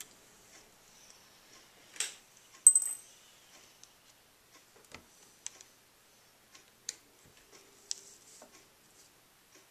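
Small Phillips screwdriver working the stubborn mounting screws of a laptop's LCD screen: scattered light clicks and scrapes. A little under three seconds in comes one sharp metallic clink that rings briefly.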